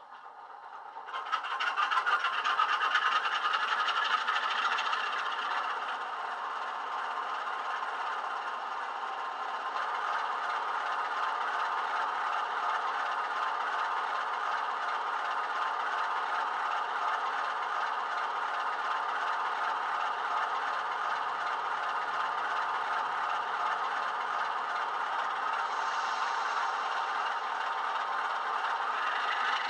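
Class 47 diesel locomotive sound, a Sulzer engine, played by a model's DCC sound decoder through its small built-in speakers: the engine starts up just as the sound begins, runs louder for a few seconds, then settles to a steady idle about six seconds in.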